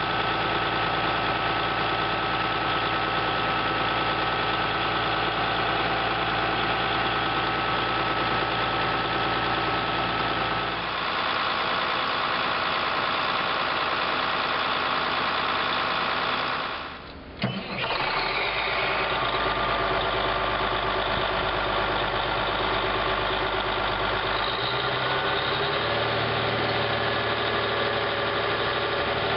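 Caterpillar D8R bulldozer's diesel engine running steadily. Its tone changes about a third of the way in, and a little past halfway it briefly drops with a sharp knock before running on.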